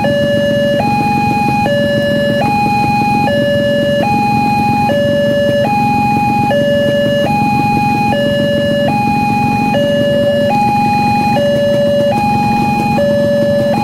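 Railway level-crossing warning alarm sounding: an electronic two-tone hi-lo signal, each tone held just under a second, repeating steadily, over a steady low rumble.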